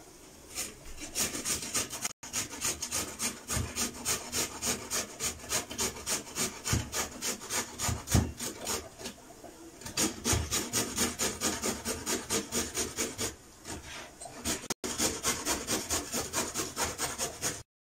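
Raw beetroot being grated by hand on a metal box grater onto a wooden cutting board: a steady run of rasping strokes, about three to four a second.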